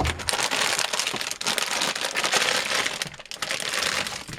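Plastic packaging crinkling and rustling steadily as it is handled and pulled open to get at the power supply's cables.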